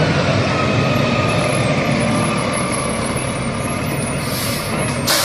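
Rear-loader garbage truck driving slowly, its engine running with a steady low rumble, and a burst of hiss near the end.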